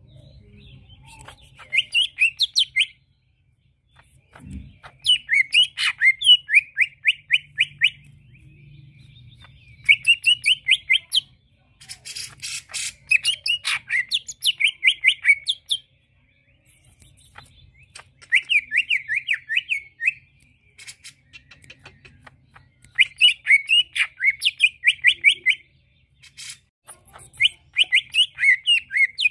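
Male green leafbird (cucak ijo) singing: phrase after phrase of fast, rapidly repeated chirping notes, each burst a second or two long, with short pauses between. A single soft thump comes about four and a half seconds in.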